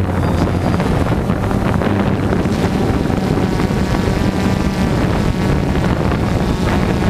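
Multirotor drone's motors and propellers running steadily in a hover, a low even hum heard from on board, with wind noise on the microphone.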